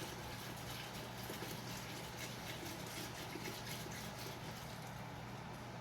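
A pot of simmering chicken broth being whisked as a thickening slurry and cream are poured in: liquid sloshing with faint irregular clicks of the whisk, over a steady low hum.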